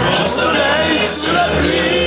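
Rock music with singing, echoing around a packed football stadium.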